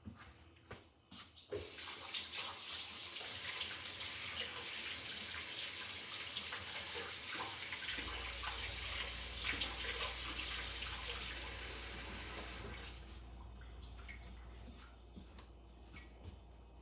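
Water tap running into a sink while hands are washed. It turns on about a second and a half in and shuts off about two-thirds of the way through, followed by quieter dripping and handling sounds.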